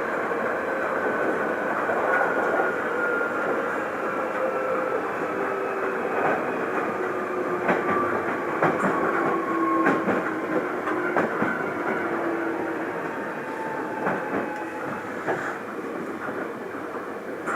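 Inside a Hankyu Kyoto Line electric commuter train while it runs: wheels on the rails, sharp clicks over rail joints, and a motor whine that slowly falls in pitch as the train slows.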